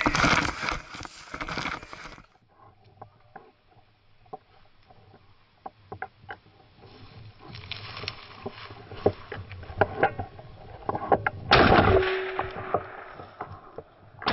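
Footsteps crunching and brushing through dry, frosty grass and brush, with scattered sharp snaps of twigs. Near the end there is one loud, sudden noise that fades over about a second.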